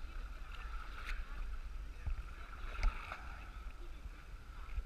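Boat's Yamaha outboard engine running steadily with a constant whine, under water washing along the hull and wind rumbling on the microphone. Two brief sharp clicks, about a second in and near three seconds.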